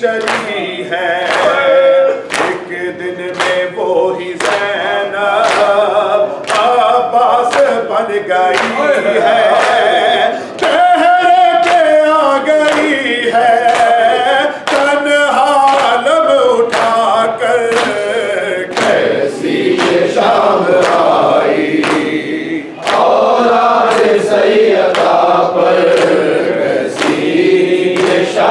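Group of men chanting an Urdu noha in unison behind a lead reciter, with a steady beat of sharp hand slaps keeping time, the chest-beating (matam) of Muharram mourning. The singing breaks off briefly twice between lines.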